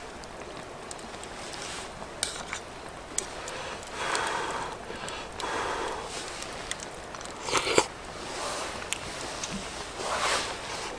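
Intermittent rustling and scraping with scattered small clicks, as of camping gear being handled, over a steady background hiss; the loudest swell is a sharp scrape-and-clatter about three-quarters of the way in.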